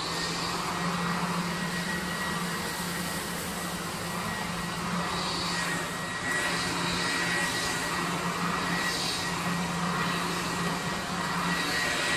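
Gas-powered leaf blower running steadily at high throttle, a motor hum under a rushing air roar, with small surges in level.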